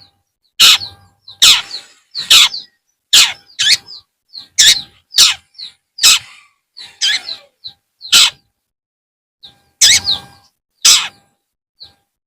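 Long-tailed shrike (cendet) giving a string of short, harsh calls, one to two a second, many with a quick falling note, pausing for about a second some eight seconds in.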